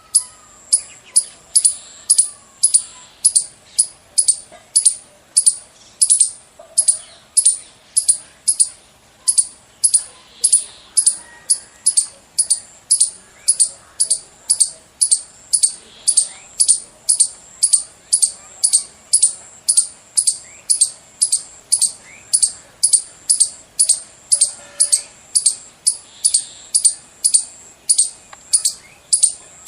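A squirrel's chirping alarm call: short, sharp, high-pitched chirps repeated steadily about twice a second, without a break.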